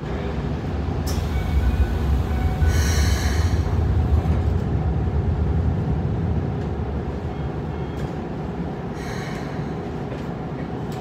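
Interior of a stopped Keikyu 600-series commuter car, its side doors sliding shut, with a short hiss about three seconds in. A click and a second short hiss follow near the end, over a steady low rumble.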